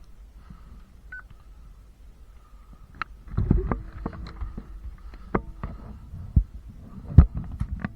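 Low rumble and rustling of a body-worn microphone as the player moves, broken by a few sharp clicks or knocks about three, five, six and seven seconds in.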